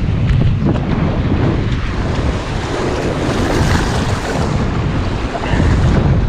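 Ocean surf breaking and washing up the beach, with strong wind buffeting the microphone. The hiss of the surf swells up about halfway through.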